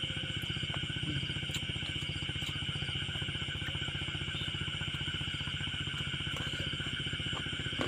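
A motor running steadily in the background, an even, fast low pulsing, under a constant high-pitched chorus of night insects, with a few faint clicks.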